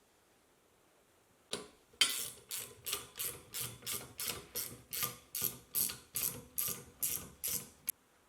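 Ratchet wrench being worked back and forth to tighten a bolt, its pawl clicking in a quick, even rhythm of about two strokes a second, after a single knock.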